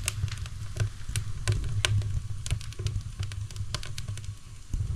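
Wood fire crackling in a wood stove: irregular sharp snaps, several a second, over a low steady rumble.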